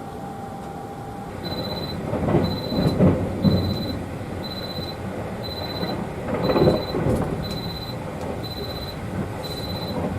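Electronic alarm beeping: a steady run of short, high beeps, a little more than one a second, starting about a second and a half in. Two louder swells of rustling noise are mixed in, around two to three seconds in and again about six and a half seconds in.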